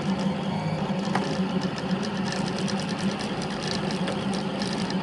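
3D printer running mid-print: its stepper motors buzz steadily as the print head moves, with rapid fine ticking from about a second in.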